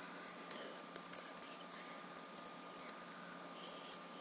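Faint, irregular keystroke clicks of typing on a computer keyboard.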